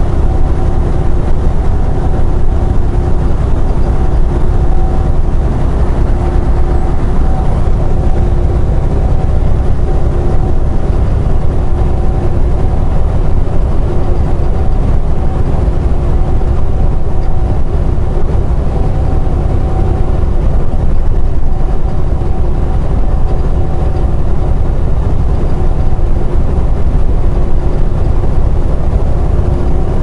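Semi truck cruising at highway speed, heard from inside the cab: a steady low engine drone and road noise with a constant hum.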